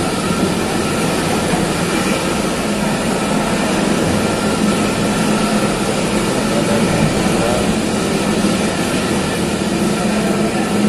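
Steady mechanical drone of running machinery, a low hum with several held higher tones over a broad rush of noise.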